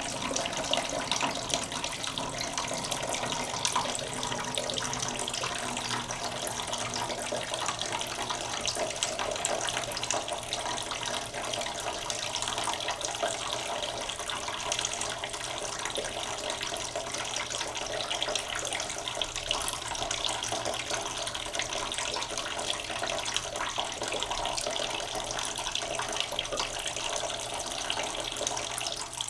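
Water from a tap running into a cooking pot in a sink, filling it slowly: a steady, unbroken stream of splashing water.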